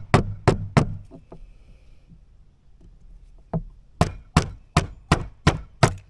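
Ball-peen hammer striking the end of a screwdriver held against a power steering component, driving at a stuck part: four quick strikes at the start, then after a pause of about two seconds a steady run of about seven strikes, two to three a second.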